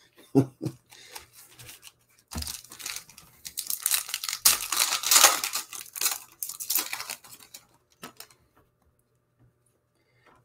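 Foil wrapper of a trading-card pack being torn open and crinkled by hand, for about five seconds starting about two seconds in. Two short knocks come just before it.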